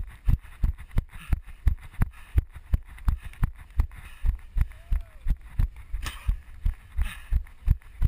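Running footfalls on a dirt track, heard as steady low thuds about three a second through a head-mounted camera.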